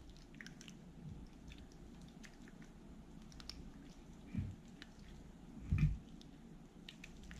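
Borax-and-glue slime being kneaded and folded by hand: faint sticky squishing and small wet clicks as it firms up, with a couple of slightly louder squelches past the middle.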